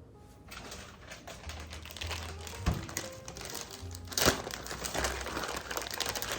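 Background music with a low bass line, over a busy run of small clicks and rustling from kitchen handling. Two sharper knocks come a little before three seconds in and just after four seconds.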